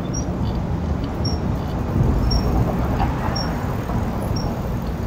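Steady low rumble of wind and tyre noise from a bicycle riding along a paved sidewalk, with a faint short high squeak repeating about once a second.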